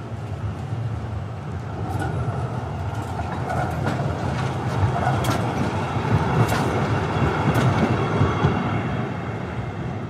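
Electric tram rolling past close by, getting louder as it nears and passes, over a steady low rumble. Several sharp clacks from its wheels crossing the rail joints and track crossings.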